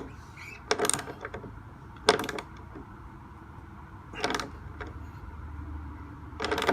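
Wrench turning the threaded flanging tool as it is tightened onto a brass thru-hull fitting: short metallic clicking and creaking strokes, four of them about two seconds apart, as the tool compresses the brass to form the flange.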